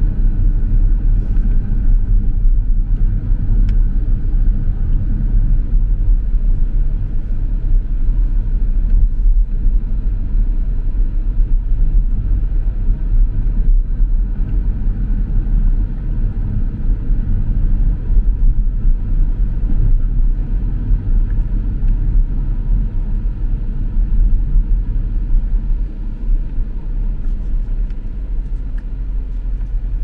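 Car driving through city streets: a steady low rumble of road and engine noise, easing off slightly in the last few seconds.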